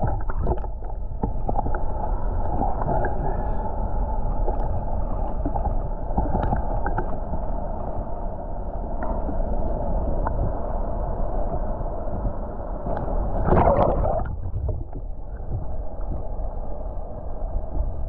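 Muffled underwater sound of river water heard through a submerged action camera: a steady low rumble and gurgle with the highs cut off, and a louder swirl of water about fourteen seconds in.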